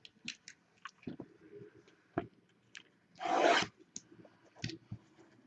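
A sealed box of football trading cards being opened by hand: scattered small rubs, crinkles and clicks of wrapper and cardboard, with one louder rasping rip, about half a second long, a little after three seconds in.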